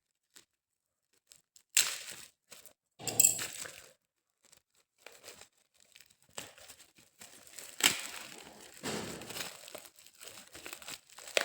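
Packaging being torn and crinkled open by hand: two short bursts of tearing, then steady rustling and crinkling through the second half, with a couple of sharper crackles.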